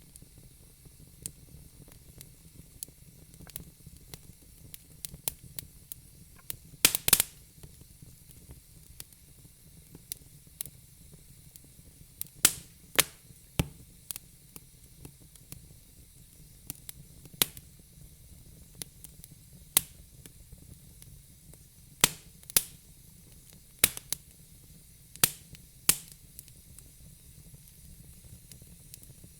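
Fire crackling: sharp, irregular pops and snaps over a soft steady hiss, with a cluster of the loudest pops about seven seconds in.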